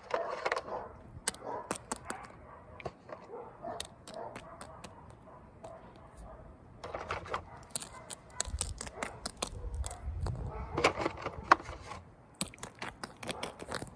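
Small toys and play pieces being handled and set down: irregular light clicks and taps with some rustling, busiest in two stretches around the middle and near the end.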